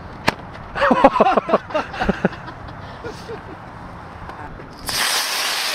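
Spectators shouting and whooping excitedly for about a second and a half, then a sudden steady hiss starts near the end.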